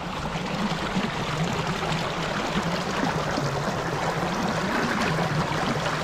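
Small creek running and trickling over its bed, a steady rush of water.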